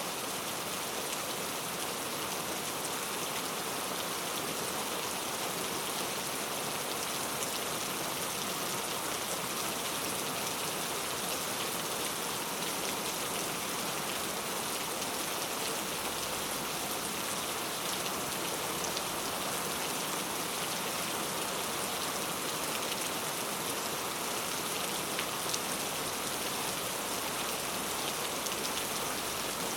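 Heavy rain falling steadily on a tent, with a dense patter of individual drops and no letup.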